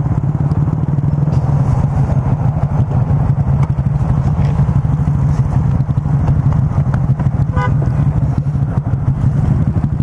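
2017 Honda Grom's 125 cc single-cylinder engine, fitted with a Yoshimura RS-2 full exhaust, idling steadily at a stop, with other small motorcycles idling alongside.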